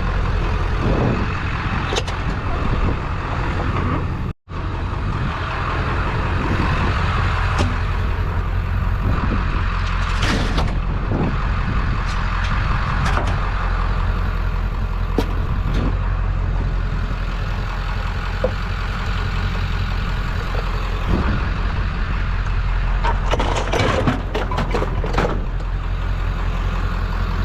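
Truck driving: steady engine rumble and road noise, with scattered light rattles and clicks. The sound drops out for a moment about four seconds in.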